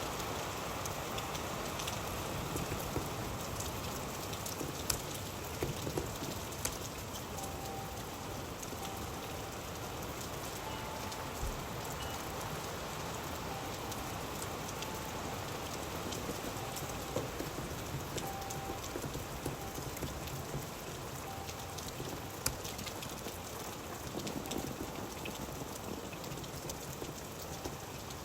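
Steady rain falling on a surface, with scattered sharper drips ticking through it.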